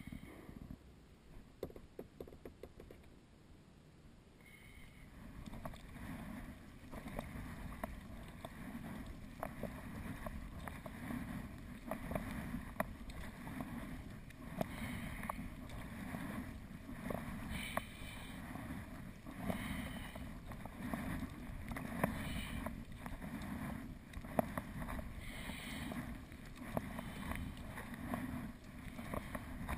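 Sea kayak paddle strokes: the blades dip and pull through the water with splashing and dripping, a stroke about every two seconds, getting louder about five seconds in.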